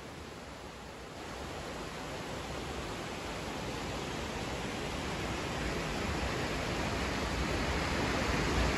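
Lidder River water rushing over stones in a shallow, rocky channel: a steady rushing noise that grows gradually louder.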